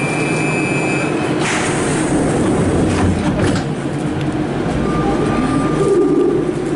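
Siemens VAL 208 driverless metro train at a station stop. A steady high tone stops about a second in, the doors slide shut with a swish and a few clunks, and near the end the traction motors start a rising whine as the train pulls away.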